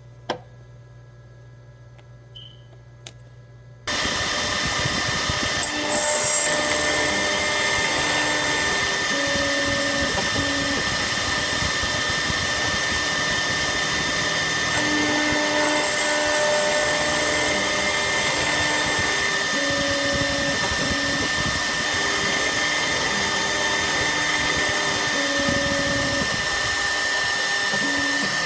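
Desktop CNC router starting up about four seconds in: the spindle motor comes on with a steady high whine, while the stepper motors hum at low pitches that change every half second or so as the axes move the tool through its cutting path. A short hiss near six seconds in.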